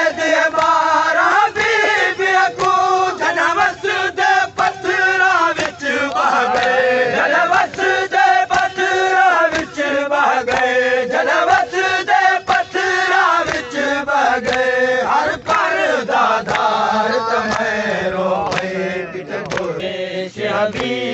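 Men's voices chanting a noha, a Shia mourning lament, in a slow wavering melody, with sharp beats at a steady pace of roughly one and a half a second.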